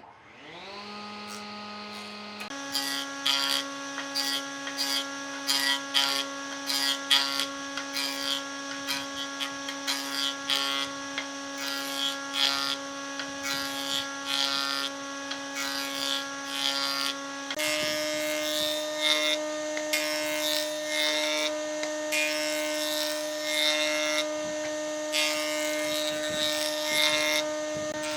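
Electric power tool spinning up from rest, then running steadily while working wood, with irregular scraping bites as it cuts into the wood. Its motor pitch steps up twice, once just after the start and again about two-thirds of the way through.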